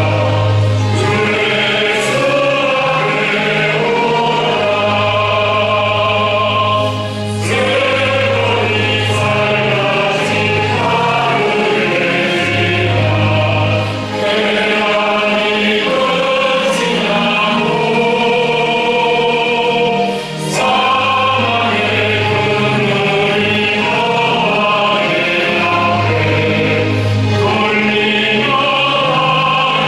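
A church choir singing a hymn with orchestral accompaniment from an amateur student orchestra, sustained chords over a steady bass line.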